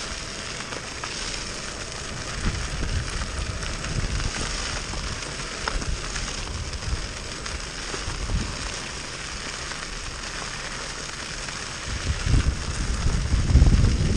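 An off-road skateboard's big air-filled wheels rolling steadily over a gravel path. Wind rumble on the microphone grows louder over the last couple of seconds.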